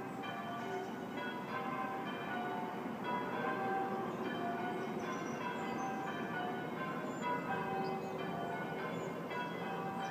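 Church bells ringing, a continuous run of strokes at several pitches that overlap and ring on into one another.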